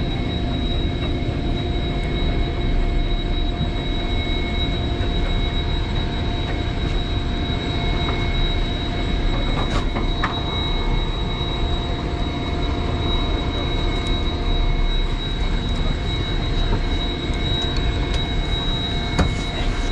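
Steady mechanical drone over a low rumble, with constant high whining tones, from the boat's idling engines as it sits near the fish. A couple of sharp clicks come about halfway through, as the spinning reel is worked.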